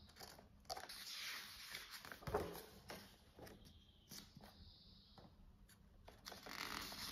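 A page of a paper picture book being turned by hand: a faint rustle and swish of paper, with a soft knock a couple of seconds in and light handling clicks.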